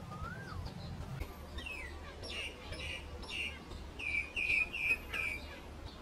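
Common myna singing: a whistled note that rises and falls, then a run of short downward-sweeping chirps, ending with four loud repeated notes.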